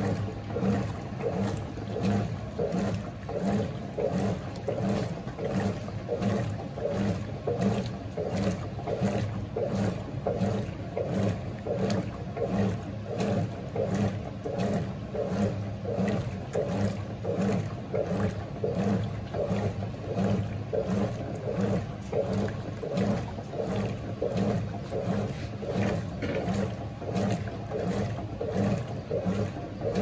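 GE Imagination 10 kg top-loading washing machine agitating a sofa-cover wash on a low water level. The agitator's back-and-forth strokes slosh the water and load in a steady pulsing rhythm, a little under two strokes a second, over the hum of the motor.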